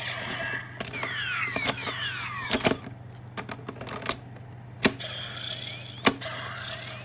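Plastic clicks and snaps of a Kamen Rider Double transformation belt toy as its memory sticks are pushed in and its slots worked, several loud separate clicks, with short electronic sweeping sound effects from the toy between them.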